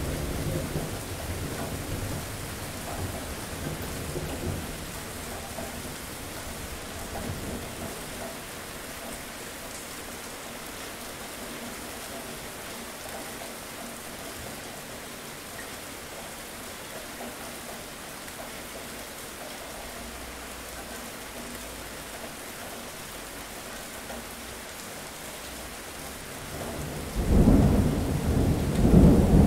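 Thunderstorm with steady rain falling throughout. A low rumble of thunder dies away over the first several seconds, and near the end a loud peal of thunder breaks in and keeps rumbling.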